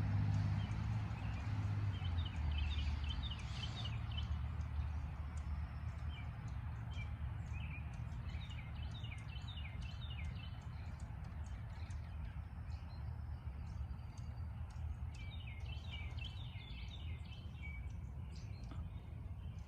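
A songbird singing a quick run of notes three times, each phrase lasting a few seconds, over a steady low background rumble.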